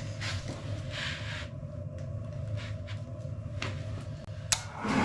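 A steady low hum with faint handling noises, then a sharp click about four and a half seconds in. Just before the end the furnace starts up on a jumpered heat call and its running noise rises suddenly and stays.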